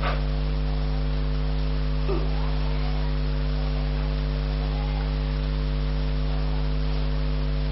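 Steady low electrical mains hum with a stack of higher hum tones over faint hiss, unchanging throughout.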